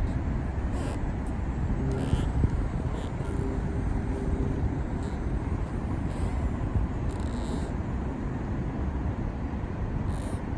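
Steady low rumble of road traffic, with a few brief faint high hisses over it.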